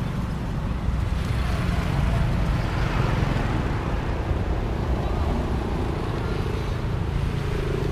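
Steady low rumble of outdoor road traffic, cars and motorbikes passing.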